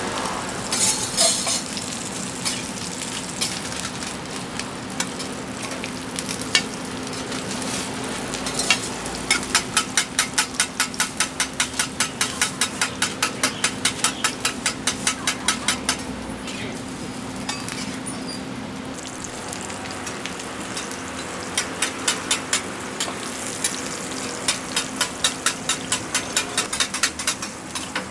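Pan-fried pork and beef buns sizzling in oil on a large flat griddle. A metal spatula strikes the griddle in two long runs of quick taps, about four a second, one in the middle and one near the end.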